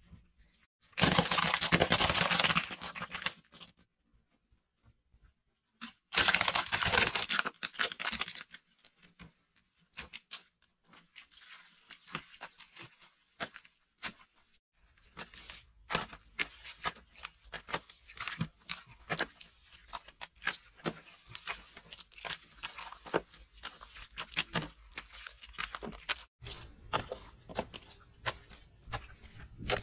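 Two loud rushing bursts a few seconds apart, then a long run of small wet slaps and scrapes as wet mud is smeared onto an earthen wall by hand.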